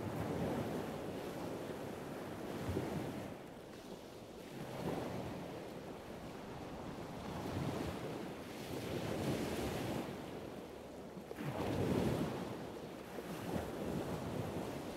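Rushing water and wind noise like surf, swelling and easing every few seconds, with the loudest swell about twelve seconds in; no motor can be heard.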